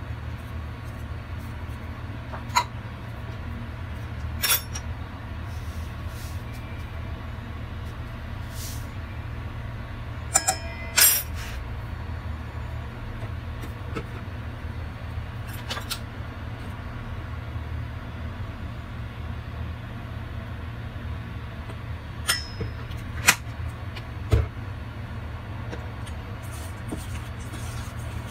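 A steady low hum with a handful of scattered sharp clinks: a plastic measuring cup and a spoon knocking against a stainless steel mixing bowl as flour is added and stirred.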